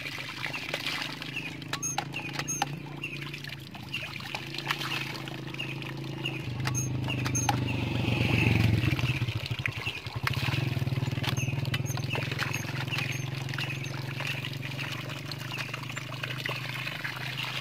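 Hand water pump being worked, with sharp metallic clanks of the handle now and then and water splashing from the spout, over a steady low drone that swells in the middle.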